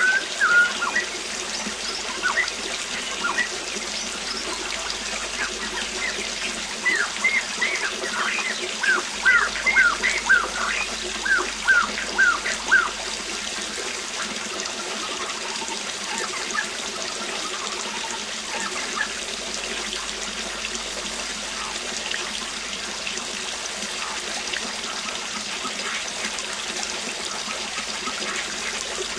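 Steady rush of a waterfall with a bird singing over it: a run of quick, downward-slurred chirps in the first half, then mostly the falling water with a few faint calls.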